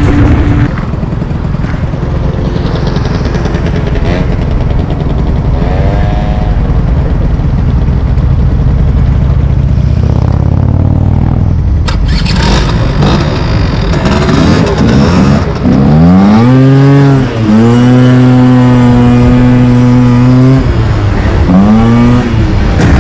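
Small scooter engine running low and steady, then from about halfway revving up in rising sweeps and holding a high, steady pitch for a couple of seconds as the scooter pulls away, with a drop and a fresh rise near the end.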